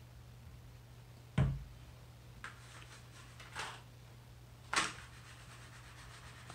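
A few knocks and a light clatter of plastic on a wooden table as a squeeze bottle is set down and a plastic lollipop mold is handled; the sharpest knock comes about a second and a half in, over a steady low hum.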